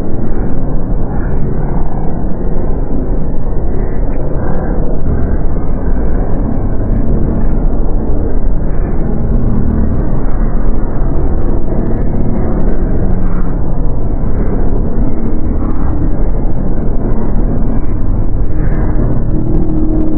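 Dark ambient horror drone: a dense, loud, steady low rumble with short low tones surfacing now and then.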